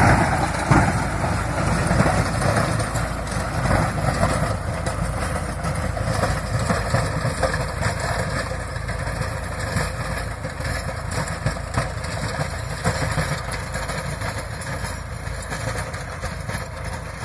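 Tractor diesel engine running under load while its Narmada rotavator churns through dry soil, a dense steady mechanical rumble that slowly fades as the tractor moves away.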